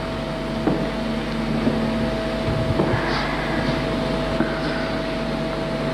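A steady droning hum with hiss and a constant held tone, broken only by a few faint clicks.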